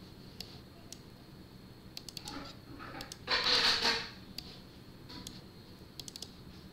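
Computer mouse clicking a number of times, scattered irregularly, over a faint steady hum. A little past three seconds in comes a louder, breathy rush of noise lasting under a second.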